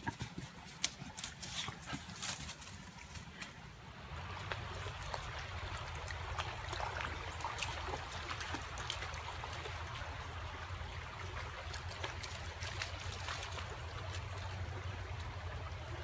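Footsteps and rustling on a dirt trail, then, about four seconds in, a shallow rocky creek running steadily, with scattered small splashes as a dog wades through it.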